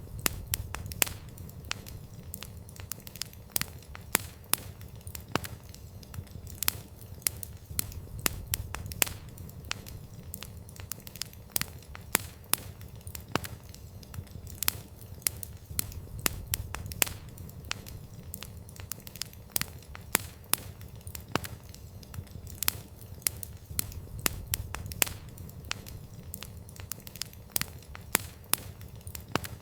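Wood campfire crackling: irregular sharp pops and snaps, several a second, over a low steady rumble of the flames.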